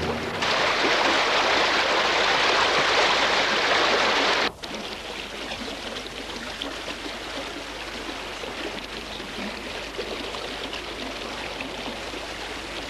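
Steady rushing noise with no pitch, loud for about four seconds, then cut abruptly to a lower, steady rush with small faint clicks.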